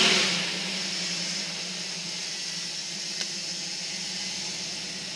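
1969 Ford Bronco's engine running steadily at low speed while rock crawling, under a constant hiss, with a brief louder noisy swell right at the start.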